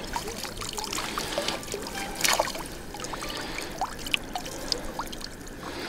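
Water trickling and dripping from a fishing keepnet's mesh back into the shallow river as the net is lifted out, with many small drips and plinks.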